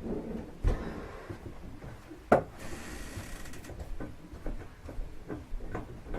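Handling noises in a small tiled room: a knock under a second in, a sharp click a little over two seconds in followed by a short hiss, then a run of small clicks and taps.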